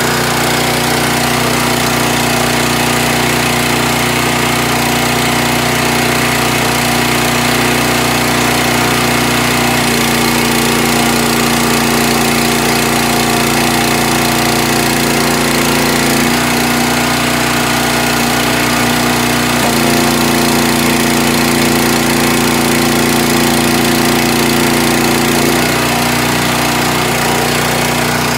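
Small gasoline engine running steadily, driving the hydraulic pump of a tire doubling machine. Its note shifts a few times as the hydraulic ram is worked.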